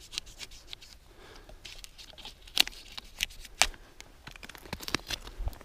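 A knife blade scraping and tearing strips of bark off a fallen birch log, in irregular short strokes with a few sharper scrapes, about two and a half, three and a half and five seconds in.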